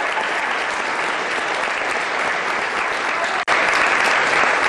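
Audience and cast applauding, a dense continuous clapping. About three and a half seconds in it drops out for a split second and comes back louder.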